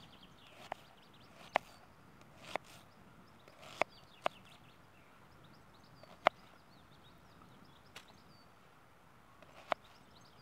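A kitchen knife cutting an onion on a chopping board: about eight or nine sharp, separate taps at uneven intervals as the blade strikes the board.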